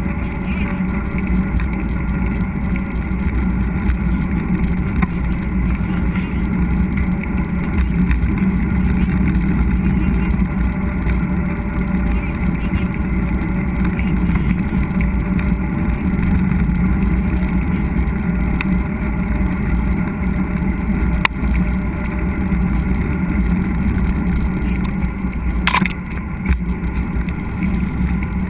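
Steady low rumble of wind and tyre noise from a mountain bike ride, picked up by a GoPro on the moving bike or rider. A sharp click about 21 seconds in and a brief rattle near 26 seconds.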